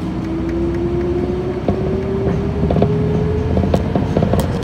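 City bus heard from inside the cabin as it drives, engine and road noise rumbling under a whine that rises steadily in pitch as the bus speeds up, with scattered sharp rattling clicks.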